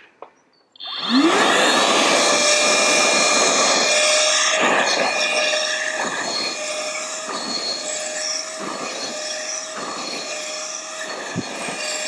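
Worx 20V cordless wet and dry vacuum switched on at full power about a second in: its motor whine rises quickly and settles to a steady pitch. A regular pulse about every second and a half comes as the nozzle is worked back and forth over carpet.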